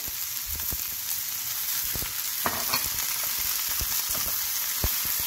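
Sliced green tomatoes, onion and spices sizzling steadily in coconut oil in a non-stick frying pan, with scattered light knocks and clicks as raw prawns are dropped in, a cluster of them about halfway through.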